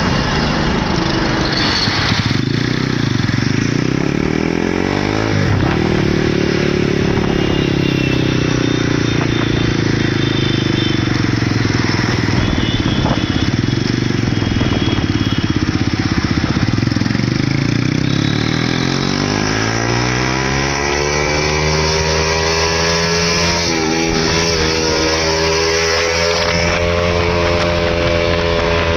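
Motorcycle engine and exhaust running steadily, the pitch slowly rising and falling as the throttle is opened and eased, with a couple of quick dips and blips along the way.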